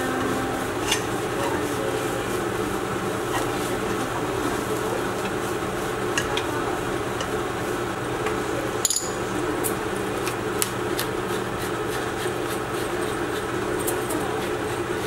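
Fried rice cooking in a nonstick wok: a steady hiss and hum with a low sizzle, broken by a few sharp clicks and taps of a wooden spatula against the pan, the loudest about nine seconds in.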